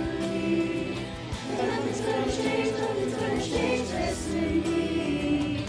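Virtual high school choir singing in harmony with instrumental accompaniment, holding long notes that shift in pitch.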